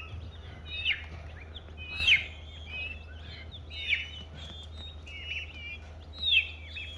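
Baby chicks peeping: short, high chirps that fall in pitch, singly and in quick runs about once a second, over a low steady hum.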